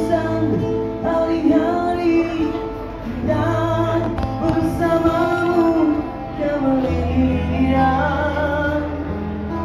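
Live band: a man singing through a microphone and PA system, holding long notes, backed by electric guitars with a steady bass line underneath.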